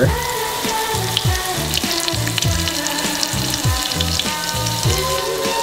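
Breaded chicken breast shallow-frying in hot ghee in a pan, a steady crackling sizzle. Background music with a steady beat plays over it.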